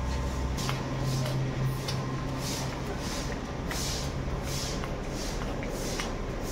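Footsteps scuffing on a hard path at a walking pace of about one and a half steps a second, with a low steady hum through the first half.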